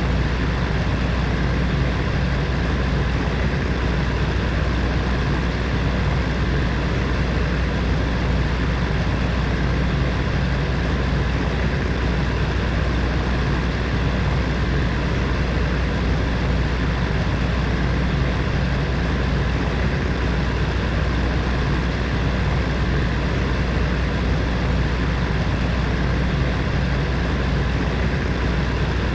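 Space heater's electric fan running steadily: a constant low hum under an even rush of air.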